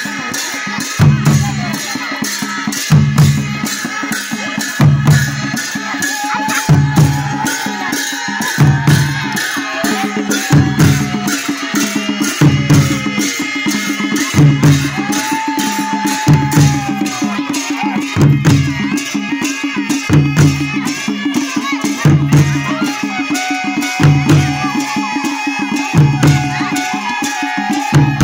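Nepali panche baja music: a deep drum stroke about every two seconds under rapid cymbal clashes, with a wavering reed-pipe melody rising and falling above.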